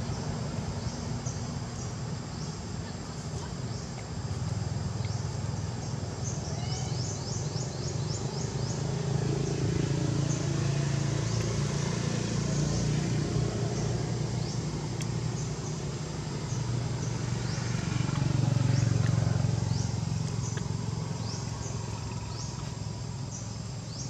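Outdoor ambience: a steady low rumble that swells twice, with short high-pitched chirps repeating throughout.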